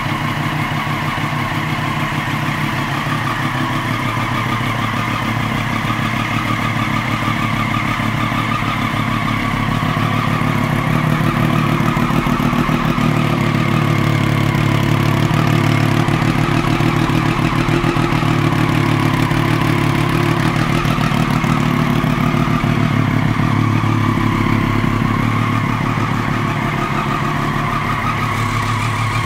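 2012 Triumph Daytona 675's inline three-cylinder engine idling steadily through a Jardine aftermarket exhaust. It grows a little louder through the middle.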